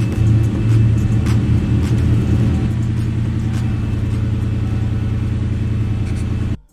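1996 Ford Mustang GT's 4.6-litre V8 running steadily with a deep, even rumble, then cutting off abruptly near the end.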